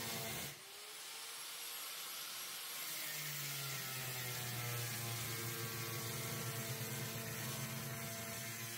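Electric power tool motor whirring steadily. The sound breaks off sharply about half a second in, a whir winds up slightly in pitch, and a lower hum joins about three seconds in.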